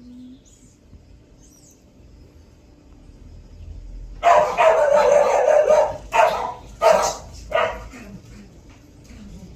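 Dog barking: a run of loud barks starting about four seconds in, then three single barks.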